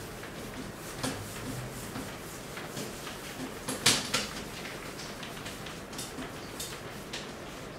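Handheld whiteboard eraser rubbed across a whiteboard in repeated short wiping strokes, with one louder knock about four seconds in.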